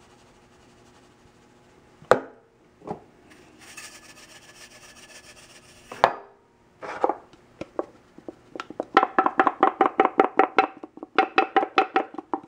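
Seasoning being shaken onto a roast: a few knocks and a short hiss of granules from a plastic shaker bottle, then a stainless steel shaker shaken hard, a fast metallic rattle of about six shakes a second with a ringing tone, in two runs.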